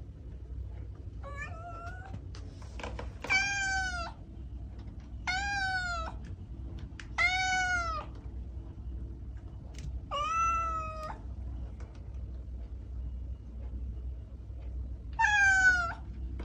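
Domestic cat meowing six times, a couple of seconds apart, each meow rising then falling in pitch; the first is fainter than the rest.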